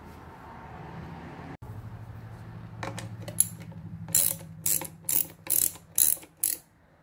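Hand socket ratchet clicking as it loosens the nylon nuts on a Harley-Davidson Evolution air-cleaner cover: short bursts of ratchet clicks, about two to three a second, starting around the middle and stopping just before the end.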